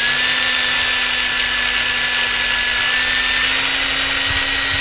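Cordless drill running steadily at speed, boring a small hole into the camera-mount pole held in a vise, with an even, unbroken whine.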